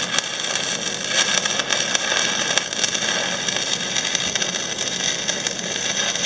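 Stick-welding arc from a Miller Syncrowave 180 SD burning a 1/8-inch 6010 rod on carbon steel: a steady, crackling hiss with no break.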